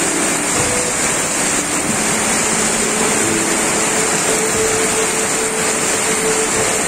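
Flash floodwater rushing and heavy rain falling: a dense, steady roar of water noise that does not let up.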